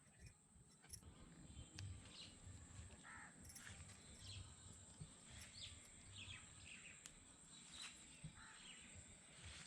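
Faint birds calling: short chirps and whistles scattered through, over a low rumble, a steady faint high hiss and a few small clicks.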